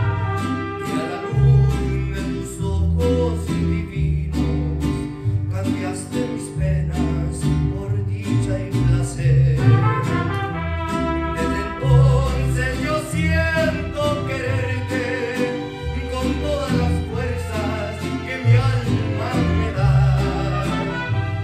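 Mariachi ensemble playing: violins carry the melody over strummed guitars and a plucked bass line, with a man singing.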